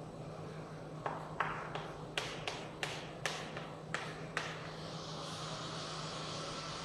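Chalk tapping on a chalkboard in quick, short strokes as dashes are drawn: about nine sharp taps between one and four and a half seconds in. A steady low hum runs underneath, and a rushing background noise builds near the end.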